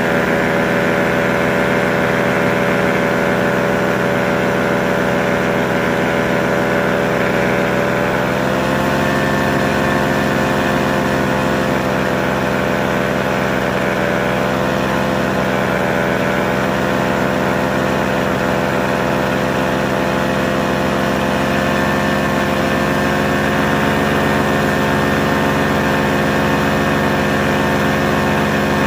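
Paramotor engine and propeller running steadily in flight, a constant engine drone whose pitch shifts a little about nine seconds in.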